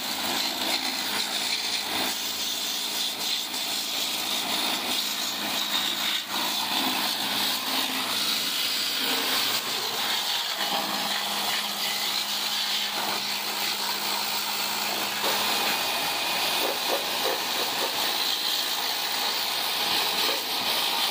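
Water jet spraying with a steady hiss onto a scooter's bodywork during a wash, over a faint steady hum that stops about fifteen seconds in.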